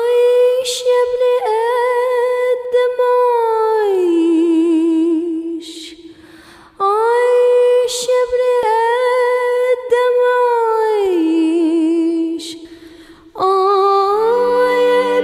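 Soundtrack music: a solo voice singing without words, unaccompanied, in three long phrases that each hold a note with vibrato and then slide down, with short breaths between. Steady low instrumental tones join under the voice near the end.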